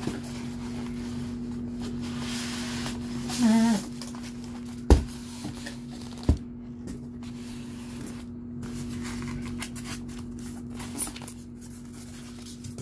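Cardboard statue box and white foam packing inserts being handled and pulled apart, with rustling and two sharp knocks about a second and a half apart in the middle. A steady low hum runs underneath.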